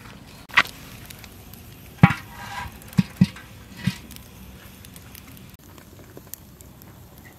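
Wood fire crackling under a large metal wok, with faint scattered ticks and a few louder knocks and pops between about two and four seconds in.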